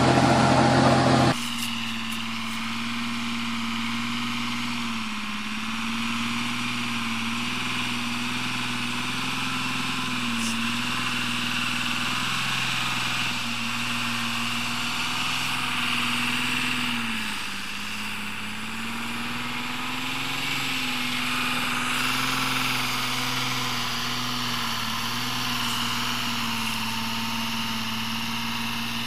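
Old truck's engine pulling a heavy load of firewood up a muddy forest track. It runs at a steady pitch that sags briefly a few times as it labours on the climb. A louder, different sound fills the first second or so before it.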